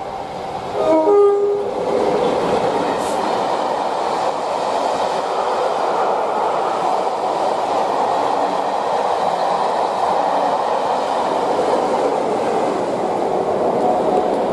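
Class 47 diesel locomotive sounds its horn about a second in: one short two-note blast, high then low. The loco and its coaches then run past, a steady loud rumble and rush of wheels on rail.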